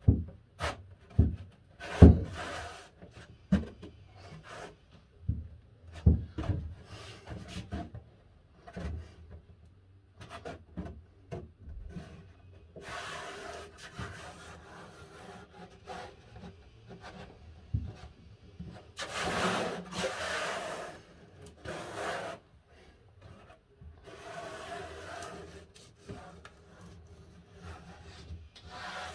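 Hands laying a thin cork sheet onto a wooden baseboard frame: knocks and taps against the wood over the first several seconds, then three spells of rubbing as the cork is smoothed and pressed down by hand, the loudest about two-thirds of the way in.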